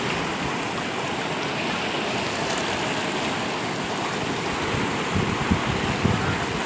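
Steady rush of flowing stream water, even and unbroken, with a few low thuds near the end.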